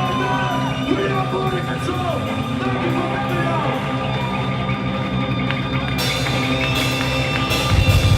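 Loud rock music with electric guitar lines sliding and bending in pitch. Cymbals and drums come in heavily about six seconds in.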